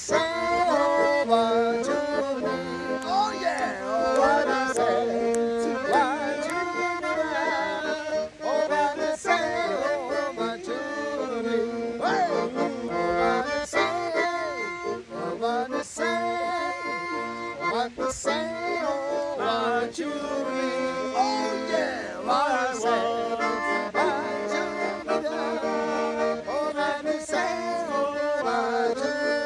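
Greek folk music played on an accordion: a continuous melody over held chord notes.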